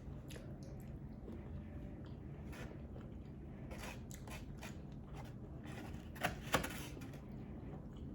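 A person eating brisket and mac and cheese close to the microphone: scattered soft clicks and mouth sounds, the loudest pair about six and a half seconds in.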